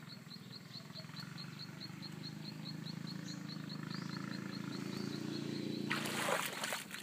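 A steady low motor hum grows louder over several seconds while a high chirp repeats about four times a second. About six seconds in, water splashes loudly as a person wades into the shallows, and the hum stops.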